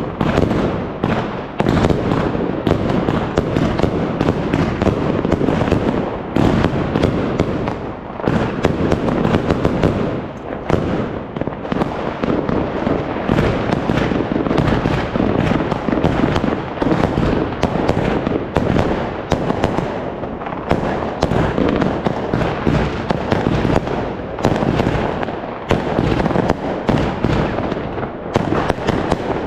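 Fireworks and firecrackers going off in a dense, unbroken barrage of overlapping bangs and crackles.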